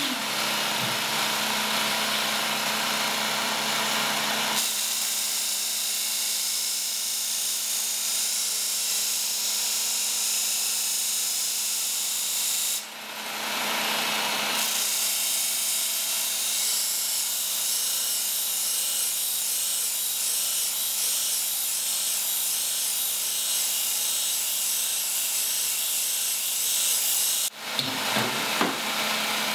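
Work Sharp Ken Onion belt sharpener running with a steady motor hum while its abrasive belt grinds against a machete's edge, deliberately dulling the section of blade nearest the handle. The grinding drops briefly about 13 seconds in and breaks off suddenly near the end.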